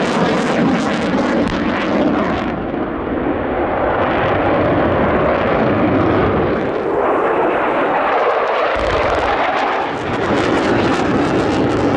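Fighter jets flying over with a continuous jet engine roar that swells and dips, and a deep thump about nine seconds in from a pyrotechnic blast.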